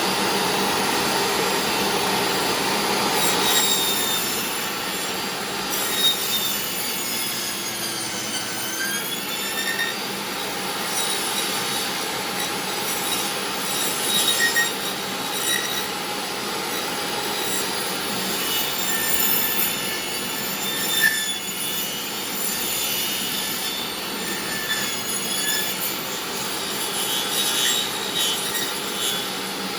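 Old DeWalt table saw, pretty loud, cutting a circular groove into a wooden board: a continuous grinding cut with wavering squeals as the wood rubs across the spinning blade. A dust collector runs underneath.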